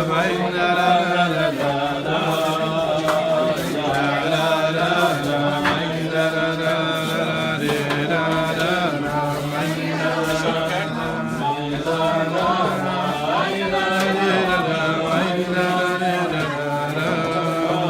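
Men's voices singing a wordless melody together, a continuous chant-like tune.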